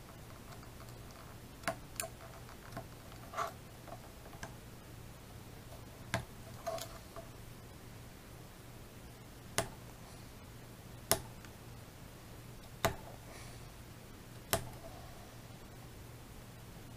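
A hand-held blade or scriber drawn along the edge of a plastic model part to score it apart, giving light sharp ticks every second or two, a few with a short scrape, over a steady low hum.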